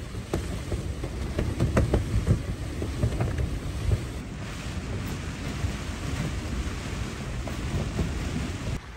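Wind and rain beating on a canvas tent, with irregular low thumps as the fabric flaps in the gusts.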